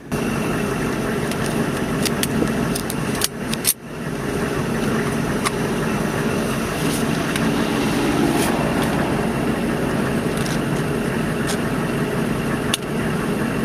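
Vehicle engine idling steadily, heard through an open door, with a few sharp clicks and knocks of handled gear; the noise briefly drops out about four seconds in.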